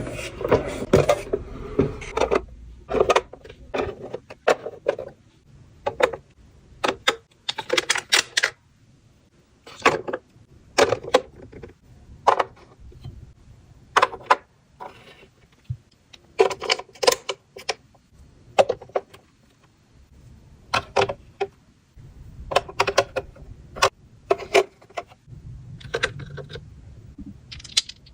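Small hard items and packaging handled by hand: irregular clicks, clinks and rattles in short bursts with brief pauses between.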